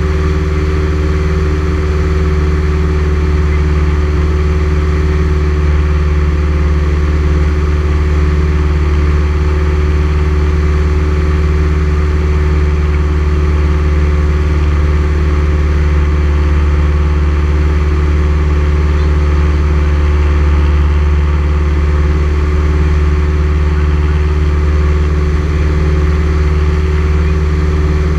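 Steady drone of a single-engine light aircraft's piston engine and propeller, heard inside the cabin in flight.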